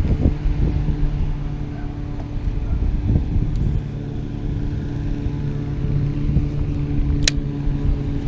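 A small fishing boat's motor running with a steady hum, over a low rumble of wind or water. A single sharp click comes about seven seconds in.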